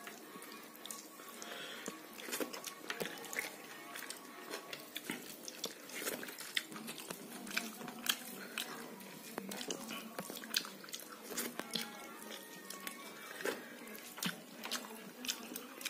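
Eating rice and dal by hand: chewing and wet mouth clicks, with fingers mixing the rice on a steel plate, making many short irregular clicks.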